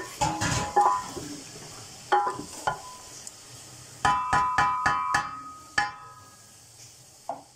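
Wooden spoon knocking against the side of an aluminium cooking pot while stirring chicken, each knock leaving the pot ringing briefly. The knocks come singly at first, then in a quick run of about four a second, about four seconds in.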